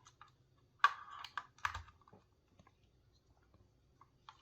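Small hard plastic clicks and rattles from fitting a new battery into a Logitech Performance MX mouse: a quick cluster about a second in, then a few lighter clicks near the end.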